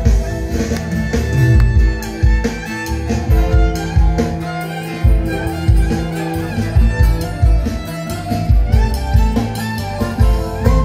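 Live instrumental band music: a bowed string melody over plucked strings and a steady, heavy low beat.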